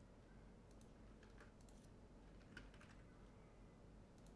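Faint, scattered keystrokes and clicks of a computer keyboard and mouse, a dozen or so irregular taps over a low background hiss.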